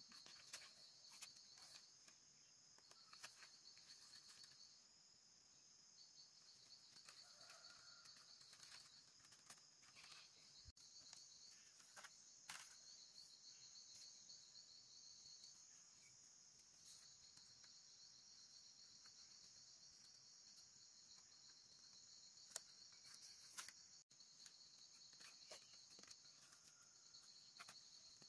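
Faint, steady high-pitched chirring of insects, with a pulsing trill that comes and goes in stretches of a second or two, and scattered light clicks and taps.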